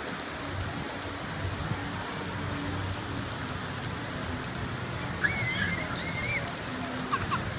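Steady rain falling on wet paving, mixed with the splash of a large fountain's cascading water. About five seconds in, a short high-pitched cry sounds twice.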